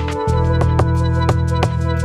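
Background music with a steady beat: sustained pitched notes over regular percussion hits about three times a second.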